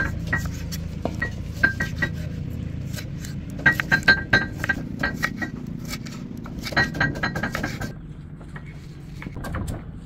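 Kitchen knife chopping tomato on a wooden cutting board: sharp knocks of the blade on the board, coming in quick runs about four seconds in and again about seven seconds in.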